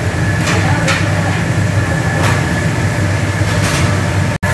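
Steady low mechanical hum of commercial kitchen machinery with a thin steady whine above it. A few brief swishes break through as a metal paddle stirs liquid in a large stainless-steel cooking kettle.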